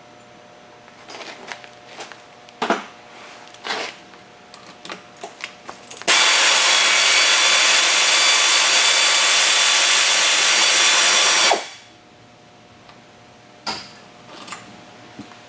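A power tool runs steadily for about five and a half seconds, loud and hissing, and starts and stops abruptly. Before it come scattered clicks and knocks.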